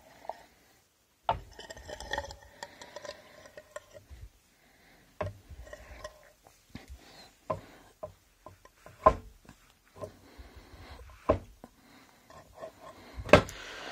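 Irregular metallic clicks and knocks from handling a disassembled ZF power steering gear, its sector gear and shaft exposed; a few of the early ones ring briefly, and the loudest knock comes near the end.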